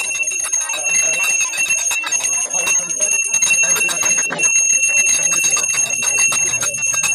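Small brass pooja hand bell rung continuously during an aarti, a steady high ringing from rapid clapper strikes, with hand claps mixed in.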